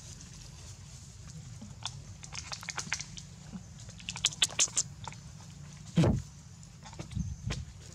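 Macaques grooming each other: quick sharp clicks and smacks in clusters, like lip-smacking and picking at fur, with a loud low thump about six seconds in.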